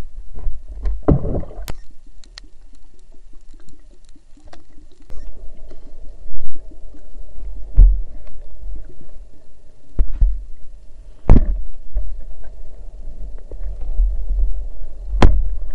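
Muffled underwater sound from a camera in a waterproof housing: a steady low rumble of moving water with several sharp knocks against the housing.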